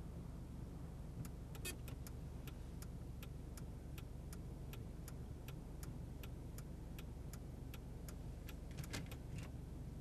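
Steady low hum with a regular mechanical ticking, about three ticks a second, and a couple of louder clicking clusters about two seconds in and near the end.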